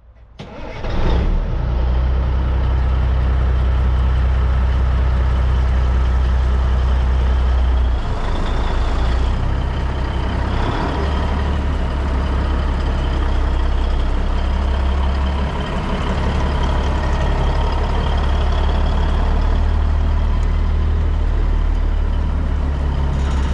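1989 Peterbilt 379 truck tractor's diesel engine idling steadily with a deep, even rumble. It shifts briefly about a third of the way in and again near the halfway mark.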